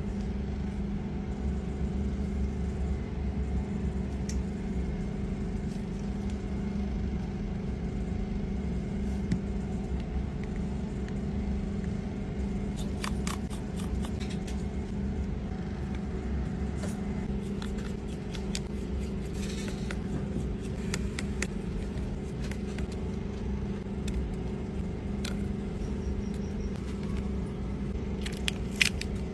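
A steady low machine hum, with a few light clicks about thirteen seconds in and again near the end.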